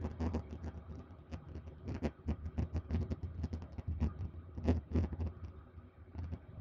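A light aircraft's engine, heard inside the cabin, giving a low steady drone at reduced power on the approach to land, with irregular crackling and clicking over it, one louder crack about two thirds of the way through.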